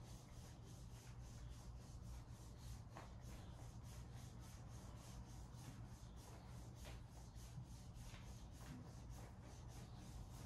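Rumble roller massage stick rubbed briskly back and forth over the side of the hip through clothing, a faint rhythmic friction rub of about three to four strokes a second.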